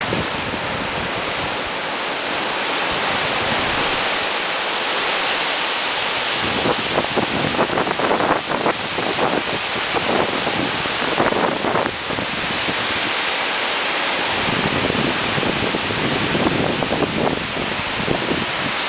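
Strong storm wind blowing hard and steadily, gusting and buffeting the microphone in rough bursts from about a third of the way in and again in the last few seconds.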